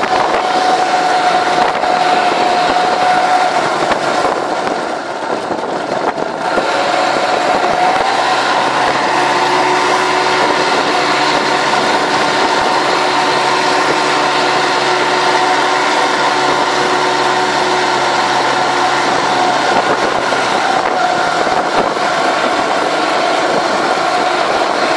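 Tomos 4 hp two-stroke long-shaft outboard motor running under way, driving a small boat. The engine sound dips briefly about five seconds in, then settles into a steady note.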